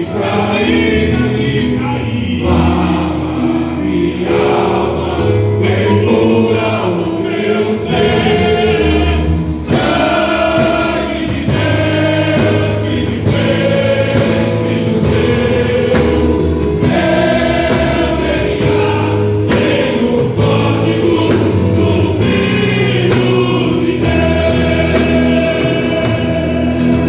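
Men's choir singing a gospel hymn in Portuguese, with sustained, changing sung notes over steady low accompaniment.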